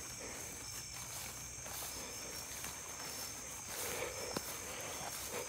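Night insects, crickets among them, chirring in a steady high-pitched chorus, with soft footsteps through tall grass and one sharp click about four and a half seconds in.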